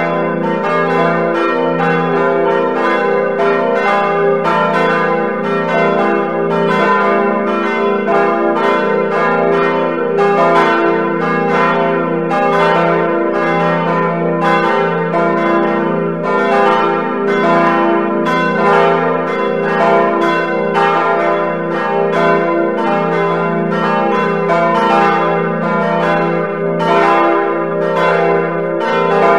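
Full peal of several church bells all ringing at once, a continuous overlapping jumble of strikes, played on a computer bell-ringing simulator.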